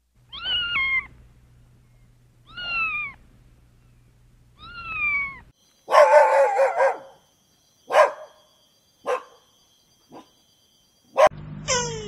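A kitten meowing three times, each meow a short call falling in pitch. Then a dog barking: a quick run of barks, followed by four single barks about a second apart, one of them faint.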